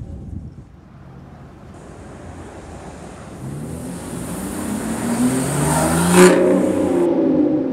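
Aston Martin Vanquish's V12 engine revving up as the car pulls away, rising in pitch and growing louder to a peak about six seconds in.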